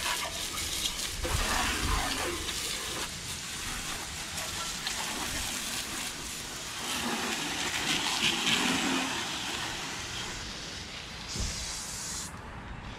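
Garden hose spray nozzle jetting water onto an aluminum boat hull and outboard lower unit, a steady hissing spatter. The spray shuts off shortly before the end.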